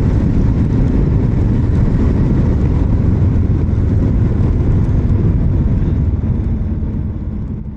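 Royal Enfield Himalayan motorcycle riding along at steady speed: engine and wind noise over the on-bike microphone. It fades down over the last couple of seconds.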